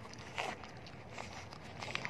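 Pug puppies eating dry kibble off a concrete floor: a few scattered crunches and clicks, the loudest about half a second in and another near the end.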